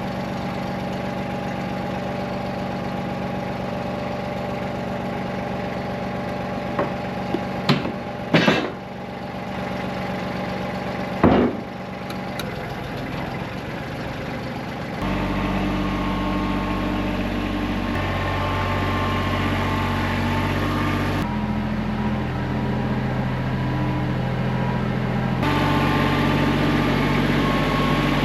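An engine running steadily, with a few sharp knocks about 8 and 11 seconds in. About halfway through, a louder steady sound takes over and shifts in pitch every few seconds.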